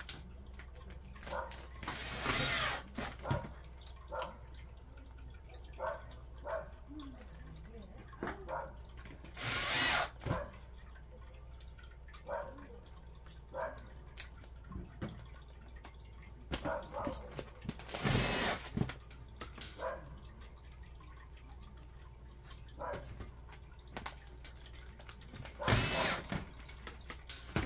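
Handiwork on a stove flue pipe: scattered knocks and clicks of tools and metal parts being handled, with four short louder bursts of noise about eight seconds apart.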